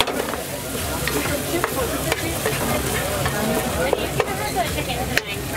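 Pad thai noodles sizzling in a nonstick frying pan over a gas flame while a slotted spatula stirs and tosses them, with sharp clicks now and then as the spatula strikes the pan.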